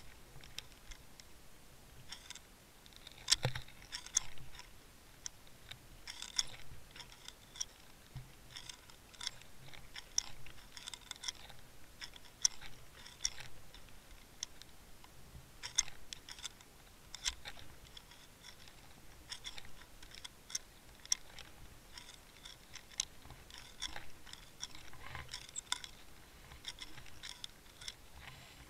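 Irregular sharp clicks and crackles, a few a second with the loudest cluster about three seconds in, heard through a Waterwolf underwater camera's housing as it is towed through the water on a fishing line.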